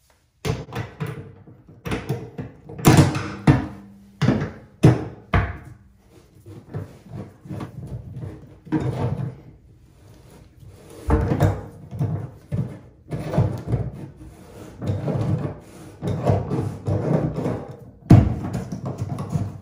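Irregular metal clunks and knocks of a breaker bar and tub drain extractor working in a bathtub drain, the loudest knocks a few seconds in, then rougher grinding bursts as the old, rusted drain is turned out of its threads.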